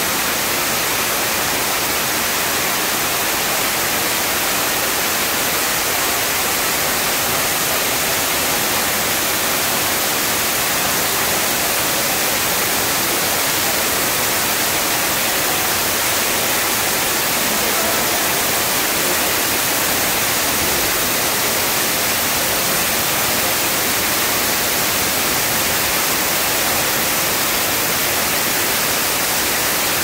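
Small waterfall: thin streams of water falling down a rock face and splashing, a steady, even, high-pitched hiss.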